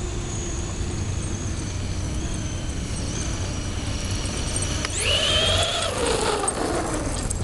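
Brushless electric motor of an RC short-course truck (Castle 3600kv) whining faintly, then spinning up sharply about five seconds in to a high whine that falls in pitch as it slows near the end. A steady low rumble runs underneath.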